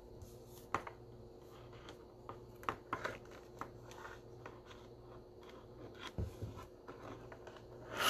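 Trading cards in rigid plastic top loaders being handled and set down on a wooden table: scattered light clicks, taps and rustles, with a sharper tap near the end.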